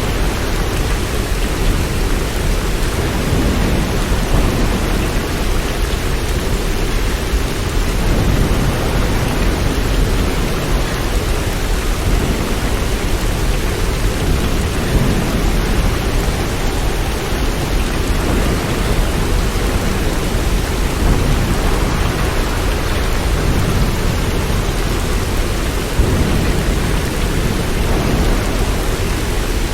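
Steady, even rainfall, with a low rumble underneath that swells and fades slowly.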